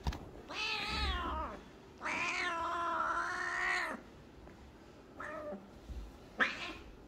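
Cat meowing: a meow of about a second, then a long drawn-out meow of about two seconds, then two short meows near the end, the last the loudest. A sharp click comes just at the start.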